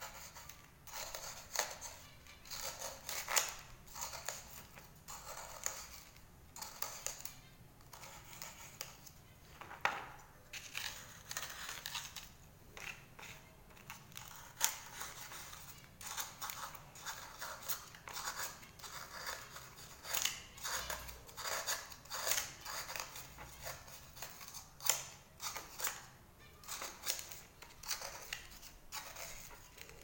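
Knife blade scraping a cuttlefish bone, shaving off its chalky layers in quick, irregular strokes, about one or two a second.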